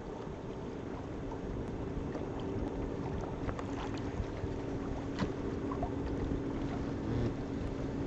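Boat under way on open water: wind on the microphone and water rushing past the hull, over a steady low hum.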